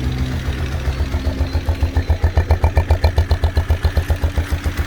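Raybar motorcycle's single-cylinder engine idling with an even, steady low beat, about eight to nine pulses a second, that neither rises nor falls. The engine runs smoothly after its damaged valve, rocker arms, camshaft and oil-pump chain were replaced.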